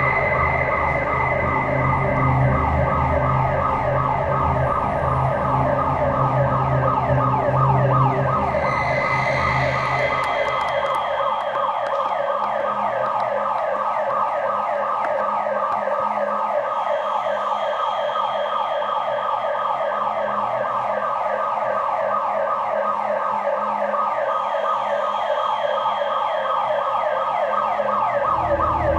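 Electronic building alarm sounding continuously: a rapid, repeating sweeping siren tone.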